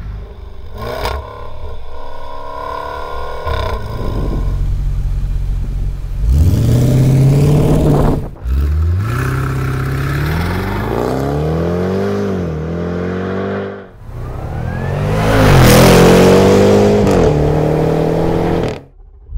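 Jaguar F-Pace SVR's 5.0-litre supercharged V8 revving through its quad-tip sports exhaust. The engine pitch climbs and drops several times, and a longer, louder pull near the end cuts off suddenly.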